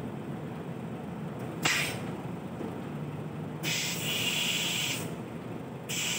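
Compressed air hissing from a tractor-trailer's air brake lines as the air hoses are coupled: a short burst, a longer burst of about a second and a half, then another short one at the end, over a low steady rumble.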